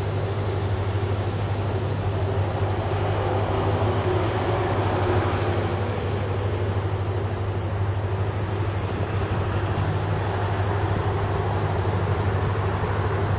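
Steady low drone of a vehicle engine with road noise, holding an even level throughout.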